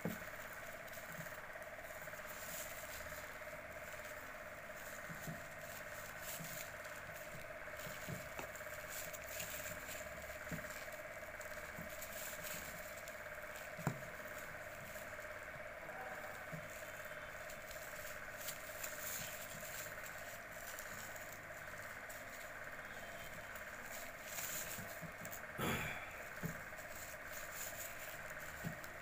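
Plastic bag strips rustling and crinkling faintly as they are worked with a metal crochet hook, with a few light clicks, over a steady background hum.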